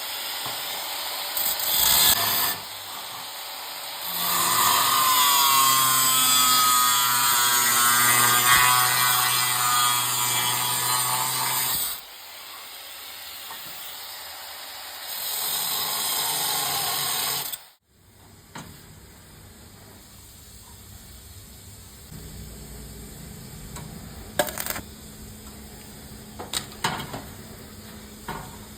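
A power tool running loudly, then stopping suddenly, followed by quieter tool handling with a few sharp clicks.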